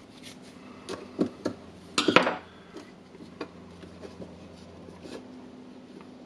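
Light clicks and knocks of small hard drill parts being handled: a carbon brush and its holder in the opened drill housing. About a dozen scattered taps, with the loudest cluster about two seconds in.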